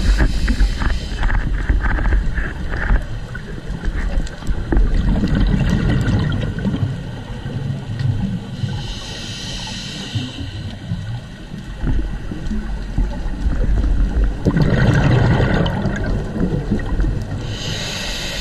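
Scuba diver breathing through a regulator underwater: bubbling rumbles of exhaled air alternate with short hissing inhalations, one near the middle and one near the end.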